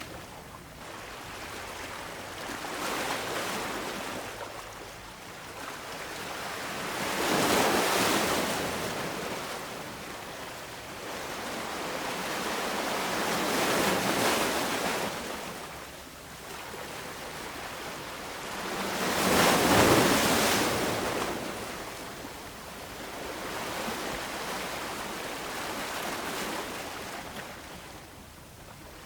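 Ocean waves surging and washing back in a slow rhythm, five swells about six seconds apart. The swells about eight and twenty seconds in are the loudest.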